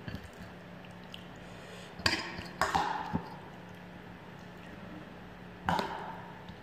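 Kitchenware clinking and knocking: a cluster of sharp clinks about two seconds in and one more near the end, each with a short metallic ring, over a low steady hum.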